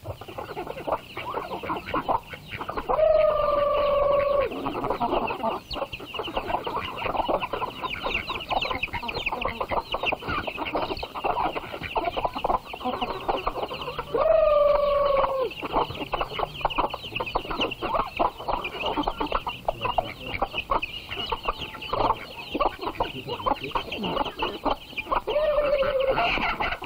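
A flock of chickens clucking while feeding. Two drawn-out, slightly falling calls stand out, about three seconds in and again about fourteen seconds in, with a shorter one near the end.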